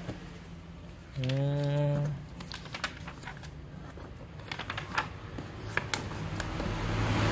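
Paper pages of a sewing machine instruction manual being turned and handled: a string of short, irregular crisp clicks and rustles.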